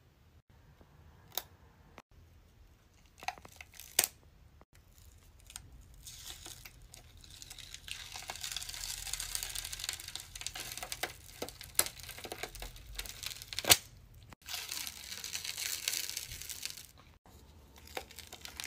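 Stretchy special-effects makeup being peeled and pulled off skin, a sticky crackling tearing sound that comes in long stretches. A few sharp clicks stand out, the loudest about two-thirds of the way through.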